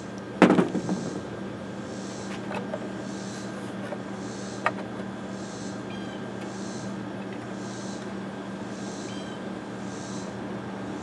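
A sharp metallic clank about half a second in, with a brief rattle after it, then a couple of light clicks as hands work fittings on the Predator 670 engine. A steady low hum and a faint high pulse repeating about once a second run underneath.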